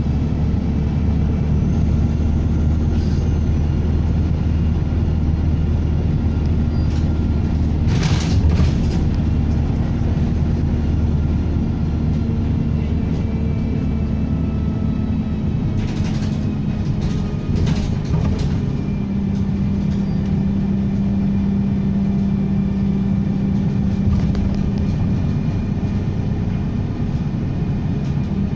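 Diesel bus engine running, its turbo whistling. The engine note shifts a couple of times, with brief noises about eight seconds in and again around sixteen to eighteen seconds in.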